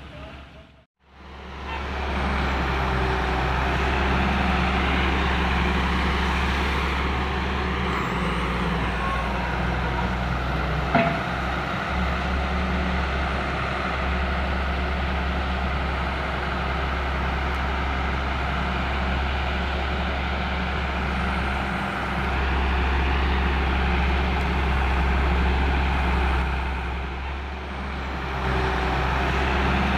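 Wheeled excavator's diesel engine running steadily while it digs, a constant low hum with mechanical noise over it. The sound cuts out briefly about a second in, then carries on.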